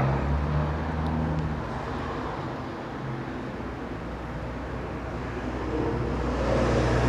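A motor vehicle's engine running with a low hum, getting louder near the end.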